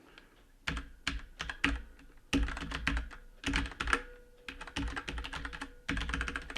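Typing on a mechanical gaming keyboard with Cherry MX Brown switches: quick runs of key clicks and keycap clacks in bursts, with short pauses between them.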